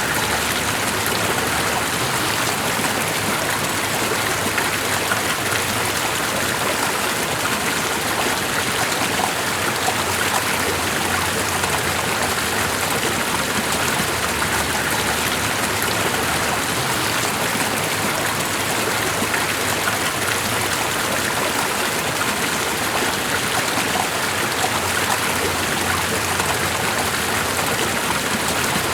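Steady, even rush of water, like rain or a stream, with no single drops or splashes standing out.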